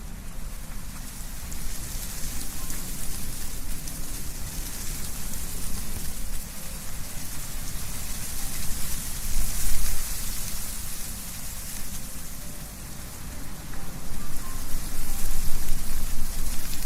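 Wind blowing through trees, leaves rustling with a steady hiss, and a low wind rumble underneath. The gusts swell and ease, peaking about ten seconds in and building again near the end.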